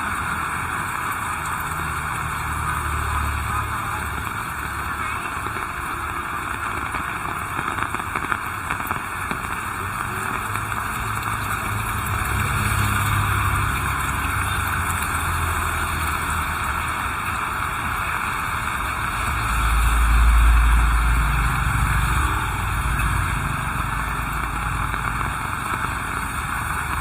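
Heavy rain falling steadily, with low rumbles swelling and fading several times, the loudest about two-thirds of the way through.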